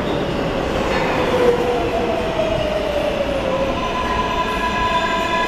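R143 subway train pulling into an underground station and braking: a steady rumble of wheels on rail with the electric motors' whine gliding down in pitch, then a chord of steady higher tones setting in about four seconds in as it slows.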